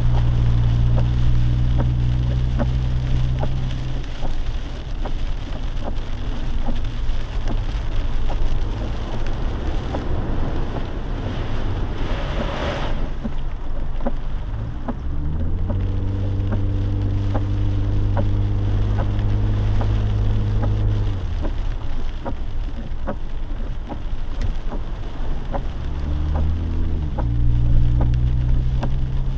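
Jeep driving in rain: a steady engine drone that drops away after a few seconds, comes back for several seconds about halfway through and again near the end, over steady rain and road noise with frequent raindrop ticks. A brief whoosh about a third of the way in.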